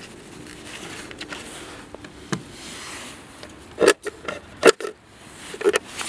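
Steel fuel filler door of a 2006 Chevrolet Aveo being closed onto its newly replaced latch. A light click comes about two seconds in, then three loud, sharp clicks in the last two seconds as the door is shut and the latch catches.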